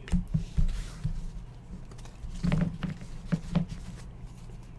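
Hands handling a stack of football trading cards on a desk mat: irregular taps and rustles as the cards are flipped, squared up and set down.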